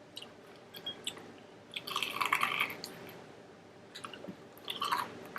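A person chewing food close to the microphone: scattered wet mouth clicks, with a denser stretch of chewing about two seconds in.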